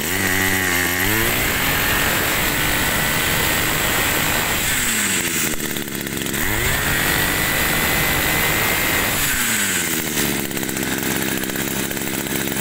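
Small petrol engine of a 22cc Makita grass trimmer running and being revved: it climbs to high speed at the start, holds there, drops back to idle, revs up and holds again, drops, and begins a third rev near the end.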